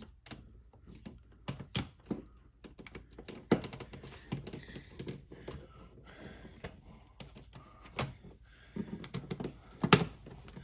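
Irregular clicks, taps and scrapes of hands and a screwdriver working a plastic light switch and wall plate into the electrical box, with sharper knocks about three and a half seconds in and near the end.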